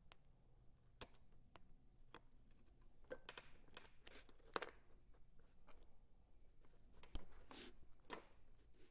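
Single-edge razor blade scraping and cutting old thread wraps off the guides of a bamboo fly rod: faint, irregular scratches and small clicks, the sharpest a little past halfway and again near the end.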